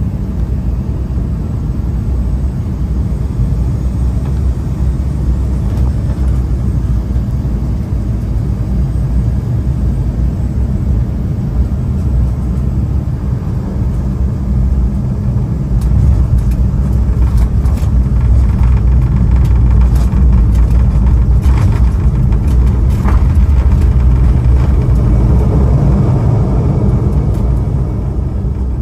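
Airliner cabin noise during landing: a steady low rumble of engines and airflow, growing louder about halfway through as the jet rolls down the runway, with scattered rattles, then easing off near the end.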